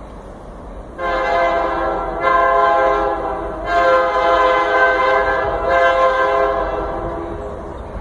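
Union Pacific diesel locomotive's air horn sounding a steady multi-note chord in several long blasts run close together, starting about a second in and tapering off near the end.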